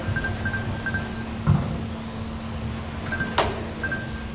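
Race timing system giving short, clipped high beeps in quick groups as cars cross the lap-counting line, with a dull thump about a second and a half in and a sharp knock a little over three seconds in, over a steady low hum.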